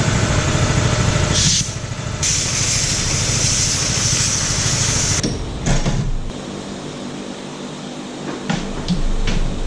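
Skid steer engine running steadily. A loud hiss comes in about two seconds in and stops about three seconds later, and a few short knocks come near the end.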